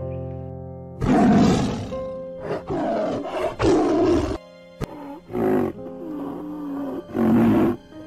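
Animal calls over background music: a camel bellows and grunts several times in the first half. After a cut, a tiger roars twice in the second half.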